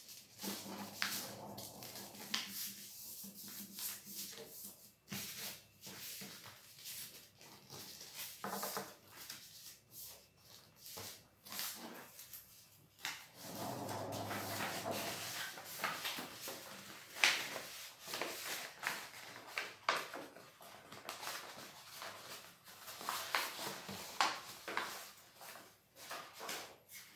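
Paper rustling and crackling as a sheet is folded, creased and slid about on a tabletop, with irregular rubs and small taps.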